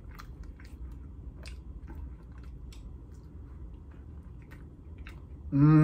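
Close-up chewing of a soft jelly-filled donut: soft wet mouth smacks and small clicks. Near the end comes a loud hummed voice sound, held for about a second.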